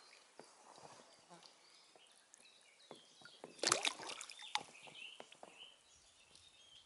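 Water splashing and dripping as an inflatable boat's oar works through shallow water, with a louder splash about three and a half seconds in and small knocks and drips around it.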